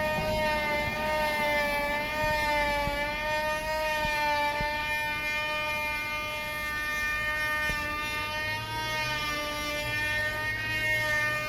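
An unidentified steady droning hum from the sky with many overtones, its pitch wavering slightly, unbroken throughout.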